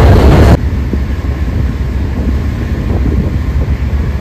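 Wind buffeting the microphone over a vehicle's running rumble. The wind noise cuts off suddenly about half a second in, leaving a steady low rumble.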